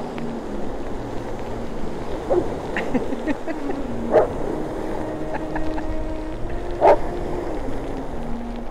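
A white shepherd dog barking at breaking lake waves: about four single barks a couple of seconds apart, over the steady wash of surf and wind.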